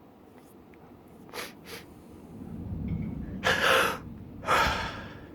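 A person sneezing from allergies: two quick sniffs, a gasping in-breath, then a loud explosive sneeze about a second later.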